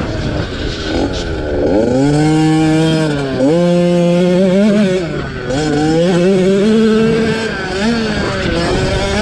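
50cc two-stroke youth motocross bikes revving hard, engine pitch repeatedly climbing and dropping back as the riders open and close the throttle, with more than one bike heard at once at times.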